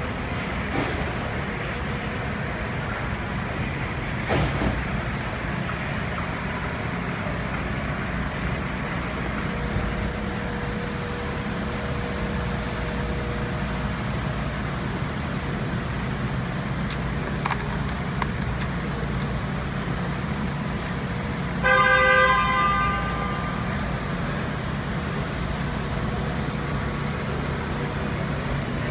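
Steady traffic noise with a few sharp clicks, and one short car-horn honk about three quarters of the way through.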